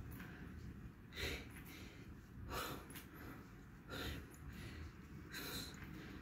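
A man's short, sharp breaths through the nose, four in all, about one every second and a half, in time with the reps of side-plank hip dips.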